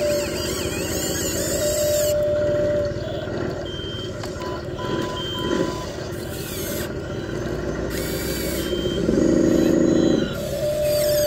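Radio-controlled toy excavator and dump truck running: electric motor whine and simulated engine sound, with a few short electronic reversing-style beeps around the middle and a louder stretch near the end.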